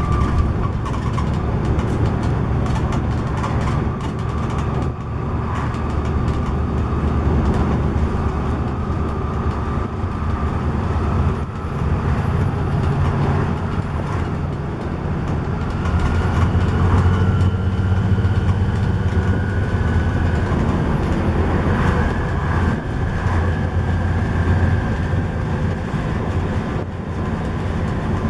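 Volvo B7TL double-decker bus on the move, heard from the upper deck: the low drone of its six-cylinder diesel engine with road noise and interior rattles, the engine note growing louder about halfway through, and a faint whine that creeps up in pitch.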